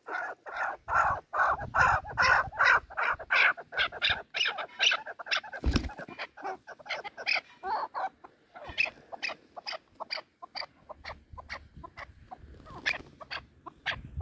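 Chukar partridge calling: a long rhythmic run of short clucking notes, about three to four a second, growing fainter in the second half. A single low thump sounds about six seconds in.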